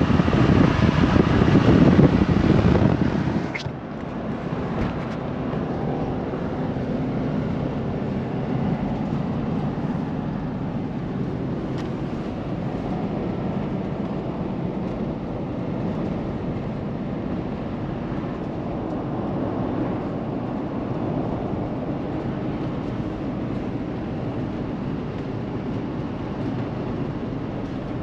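Road and wind noise of a truck driving at speed. For the first three and a half seconds it is loud, with wind buffeting the microphone, then it drops to a steady, quieter rumble heard from inside the cab.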